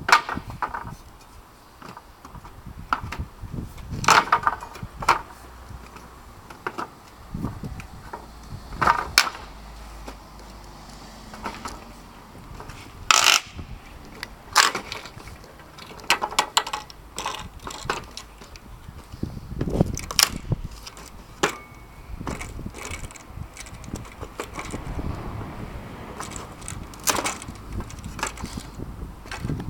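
Wooden pallet being taken apart with a steel lever-type pallet breaker: deck boards levered up off their nails with cracks and creaks, and freed boards clattering down onto the pallet and paving slabs. An irregular string of sharp knocks and cracks with quieter gaps between.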